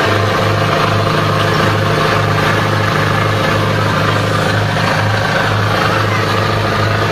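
A boat's engine running steadily under way, with a low throb pulsing about twice a second, over the steady rush of the churning wake.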